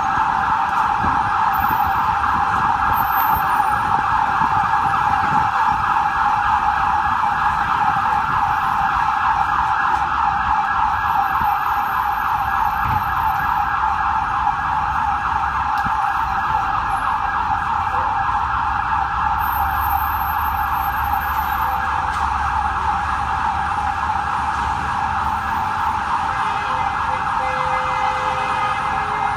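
Electronic siren of a Hatzolah emergency vehicle sounding without a break in a rapid, fast-cycling yelp, over the low rumble of idling traffic.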